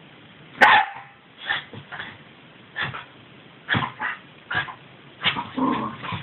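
Jack Russell terriers play-fighting, giving a string of short barks and yips, about ten in all, the loudest about half a second in.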